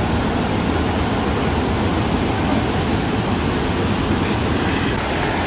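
A waterfall rushing, a steady even roar of falling water.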